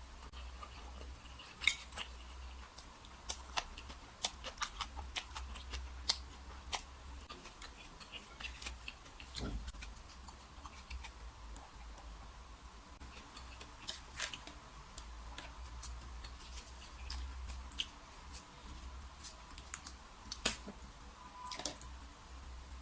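Close-up eating sounds: chewing, with irregular small clicks and taps of chopsticks and utensils, over a steady low hum.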